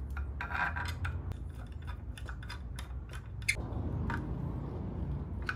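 Hand screwdriver turning a screw into the solid oak base, a string of small clicks and scrapes with rougher grinding in the second half.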